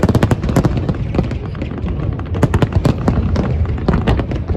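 Aerial fireworks going off in quick succession: a dense string of sharp bangs and crackles over a steady low rumble.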